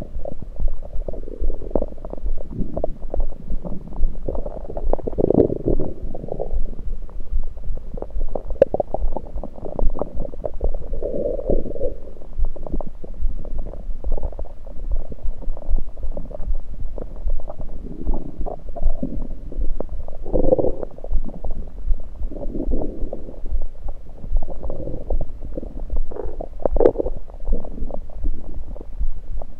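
Human stomach gurgling heard through a USB electronic stethoscope on the belly: irregular bubbling and rumbling swells that keep coming, louder several times, over a low hum and fine crackle. The uploader puts the gurgles down to liquids rather than digestion.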